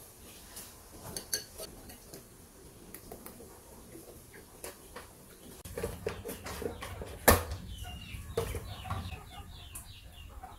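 Chickens clucking with short calls, mixed with light clinks of a metal spoon on a bowl. About halfway through, a low rumble comes in, and one sharp knock of metal cookware is the loudest sound.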